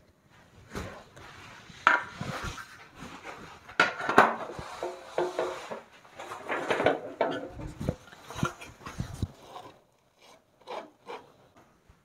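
Plastering tools and materials being handled: irregular knocks, clacks and scraping, with the sharpest knocks about two and four seconds in.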